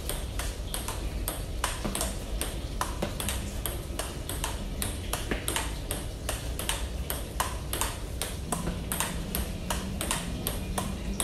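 Table tennis ball in a steady rally, clicking sharply off the rubber paddles and the table top in an even rhythm of about three clicks a second.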